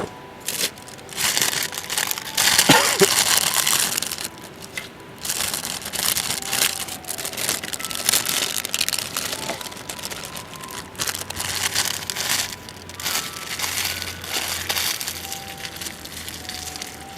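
Repeated crinkling and crumpling rustles in bursts of a second or two, loudest a few seconds in.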